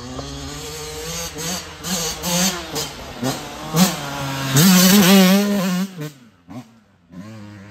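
Yamaha YZ125 single-cylinder two-stroke dirt bike revving up and down through the gears as it rides toward and past, loudest about five seconds in, then dropping away quickly as it rides off.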